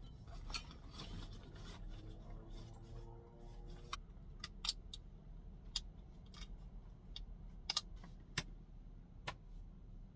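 Faint scattered clicks and light rattles of gear being handled: a backpack, a bike helmet and its chin-strap buckle being fastened. A low steady hum runs underneath.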